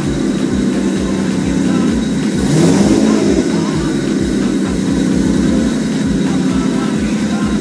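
Freshly rebuilt Nissan Skyline R33 GTS-T's turbocharged 2.5-litre straight-six (RB25DET) running. It is blipped once about two and a half seconds in, the revs rising and falling back, then it settles to a steady idle.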